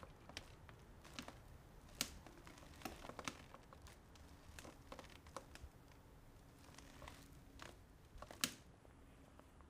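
Very quiet: scattered faint clicks and light rustling, the sharpest about 2 seconds in and near the end, over a faint low hum.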